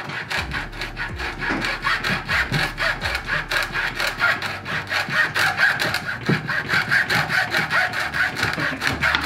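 Hacksaw cutting through a braided steel-mesh fuel hose wrapped in electrical tape and clamped in a vise, in fast, even back-and-forth strokes.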